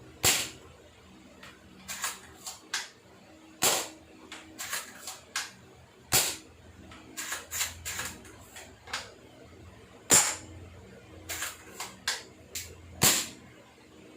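Spring-powered VSR-10 airsoft sniper rifle fired five times, one sharp shot every few seconds, with lighter clicks and clacks between the shots as the bolt is worked back to cock it.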